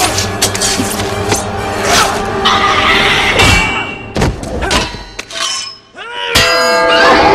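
Film fight soundtrack: music under heavy thuds and metallic crashes as a body hits steel framing and loose pipes. About six seconds in, metal pipes are struck and ring with several sustained tones at once.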